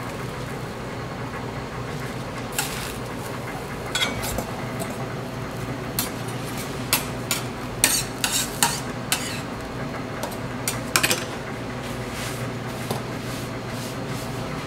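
Metal cooking utensils clinking and scraping on a street-stall flat-top griddle, a run of sharp clicks and clatters in the middle, over a steady low hum.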